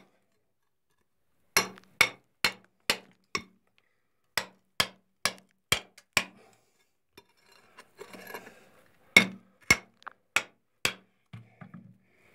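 Steel bar hammering against bedrock to chip off rock samples. There are three runs of about five sharp strikes, roughly two a second, with a short scraping patch between the second and third runs and a few lighter taps near the end.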